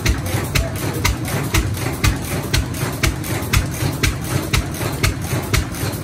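A 10 hp International M stationary gas engine running and driving a stone grist mill through a long flat belt. There is a low thumping rumble, and sharp clicks repeat evenly about twice a second.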